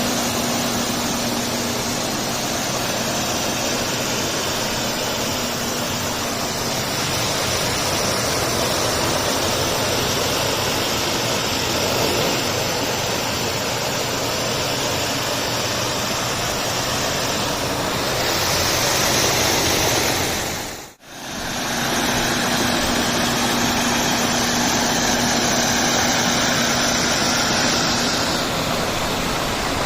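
Steady, loud rushing hiss with a low hum from a motorised tile-and-grout cleaning machine. It cuts out abruptly about 21 seconds in and starts again at once.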